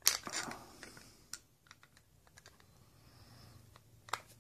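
Small screw and screwdriver clicking and clattering against the fishing reel's body while a side-plate screw is put back in: a short clatter at the start, scattered light ticks, and one sharper click near the end.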